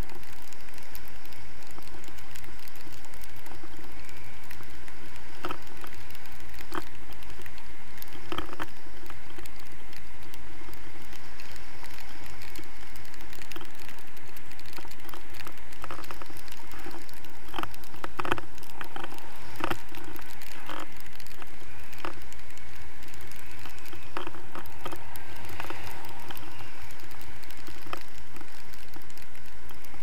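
Airflow rushing over a pole-mounted camera's microphone during a paraglider flight: a steady wind noise with scattered irregular clicks and taps.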